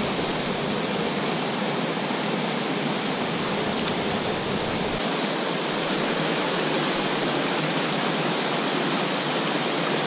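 Small waterfalls on a steep mountain stream pouring into plunge pools: a steady rush of falling and splashing water, shifting slightly about halfway through as it changes to a second falls.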